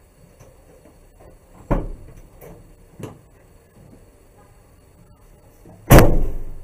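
Clunks from a Chevrolet Express cargo van's side door latch and the Lock Dog lock as the inside release and door handle are worked: a sharp metal clunk a couple of seconds in, a lighter one about a second later, and a much louder clunk near the end that rings out briefly.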